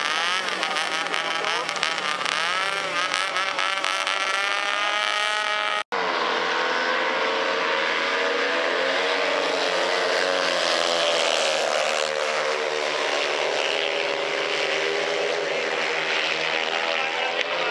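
Speedway motorcycles with 500cc single-cylinder methanol engines: for the first few seconds a couple of bikes rev up and down. After a sudden cut about six seconds in, a pack of four bikes runs hard together around the dirt oval.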